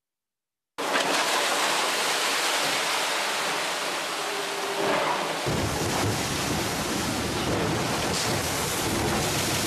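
Strong wind and rushing, breaking sea aboard a Volvo Ocean 70 racing yacht in heavy seas, starting abruptly just under a second in. Wind buffets the microphone, adding a heavier low rumble from about halfway.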